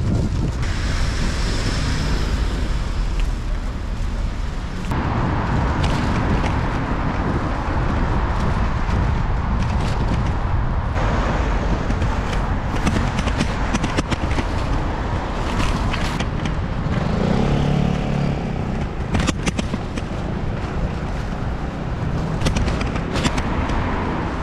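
Wind rushing over the microphone with a small motorbike's engine and road noise while riding, with traffic around it. A few short clicks come in the second half.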